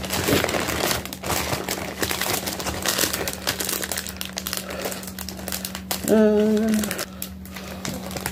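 Plastic shipping mailers and small product bags crinkling and crackling as hands rummage through them. About six seconds in, a short hummed voice sound is the loudest thing.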